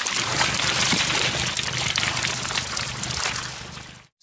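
Water gushing steadily from a hatchery stocking truck's tank outlet as trout are flushed out into the lake. The rush fades away near the end.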